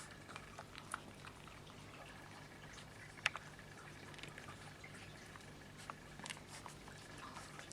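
Small Münsterländer puppies lapping milk: scattered small wet clicks and smacks, with one sharper click about three seconds in, over a faint steady hum.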